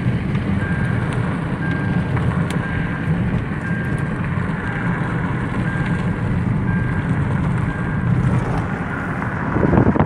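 Car driving on a country road, heard from inside the cabin: a steady rumble of engine and tyres, with a short electronic beep repeating about every three quarters of a second until near the end. Just before the end a louder rush of wind comes in.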